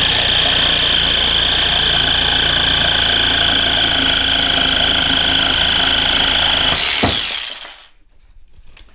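Einhell 18-volt cordless jigsaw on its maximum pendulum setting sawing through a thick timber board, running steadily with a high whine over the rasp of the blade. About seven seconds in the cut ends and the motor winds down to a stop.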